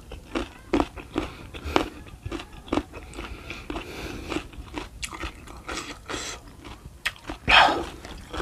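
A person chewing a mouthful of food close to the microphone: irregular wet smacks and crunchy clicks, about one or two a second, with one louder, longer mouth noise about seven and a half seconds in.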